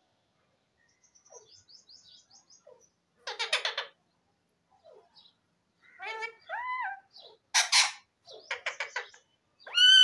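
Rose-ringed parakeet calling: faint soft twittering at first, then short buzzy squawks and a few arched whistled notes that rise and fall. The loudest comes at the very end.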